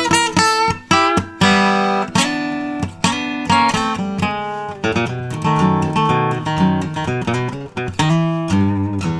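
Recording King acoustic guitar played solo, mixing picked single notes with strummed chords, each one ringing out before the next.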